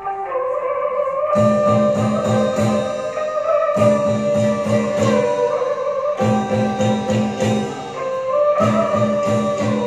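Live traditional Vietnamese ensemble music for a water puppet show: a held melody line, joined about a second and a half in by a steady low beat, in phrases that restart every couple of seconds.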